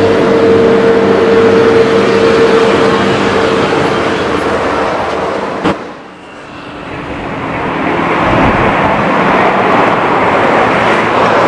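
Airbus A320neo jet engines (CFM LEAP-1A) at taxi power: a steady rush with a held whine. Near the middle the sound cuts off with a click and drops away, then jet noise swells back up over a couple of seconds and holds.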